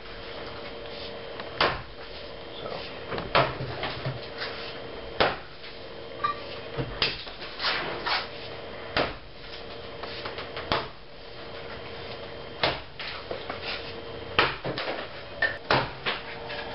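Axe chopping wood: sharp strikes about every two seconds, with lighter knocks between, over a faint steady hum.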